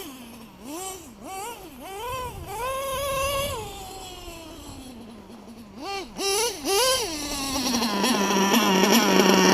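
Nitro RC car's LRP .32 engine with a Novarossi race carb, revving up and down as the car drives, its high pitch repeatedly rising and falling, then settling into a steady idle that gets louder near the end. The owner judges the high-speed needle set a bit lean.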